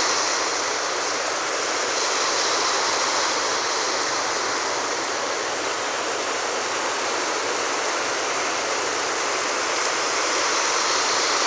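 Small ocean waves breaking and washing up onto a sandy beach: a steady rush of surf that swells slightly a couple of times.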